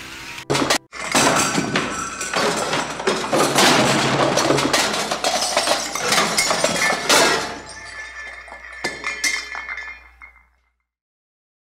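A long clattering crash, like glass and hard objects breaking and tumbling, lasting about seven seconds and then thinning out to silence. Banjo-led bluegrass music cuts off just before it.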